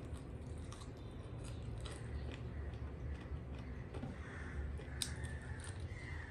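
Close-up eating sounds: chewing with wet mouth clicks and smacks, and fingers mixing rice and chicken curry in a steel plate, with scattered sharp ticks.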